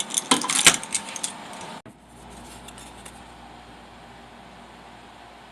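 Quick metallic clinking and rattling of small hardware and hand tools for about two seconds, then an abrupt change to a faint steady hum.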